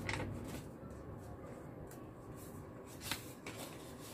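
Quiet rustling of paper as banknotes are handled and a red paper envelope is opened, with a few short, sharper crinkles, one about three seconds in.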